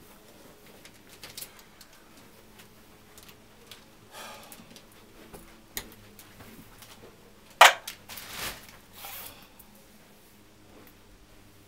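Scattered small knocks and rustles of someone moving about in a quiet room, with one sharp knock about two-thirds of the way in followed by a few brief rustles.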